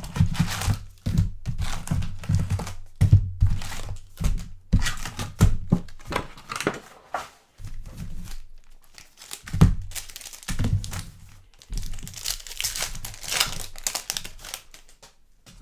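Basketball trading card pack wrappers crinkling and tearing as packs are opened by hand, with a few soft thunks among the irregular crackle.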